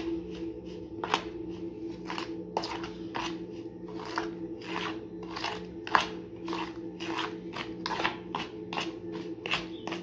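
Spoon stirring coarse damp salt into a wet blended onion-and-herb paste in a metal basin: rhythmic scraping strokes, about two or three a second.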